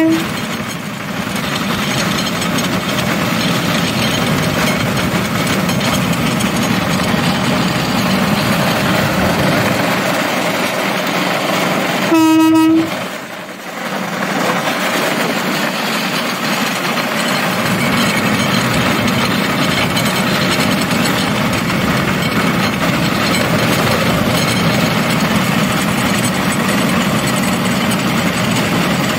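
Rail cart riding along the rails with a steady rumble, and one short blast of its horn about twelve seconds in.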